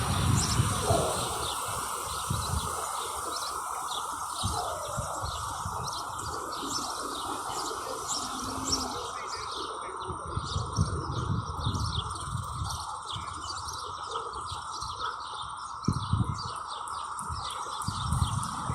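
Small birds chirping, many short high calls repeated throughout.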